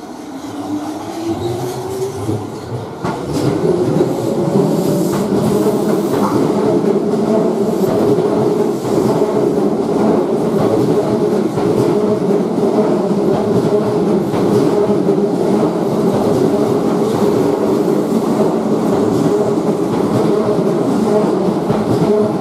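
Keihan 1000 series electric train pulling away: its motor whine rises in pitch over the first few seconds as it accelerates. It then settles into a loud, steady running rumble, with wheels clattering over the track as the cars pass.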